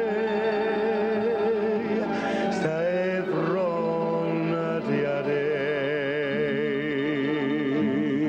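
Background music: an Italian song, with long held notes that waver in vibrato and a slide between notes about two and a half seconds in.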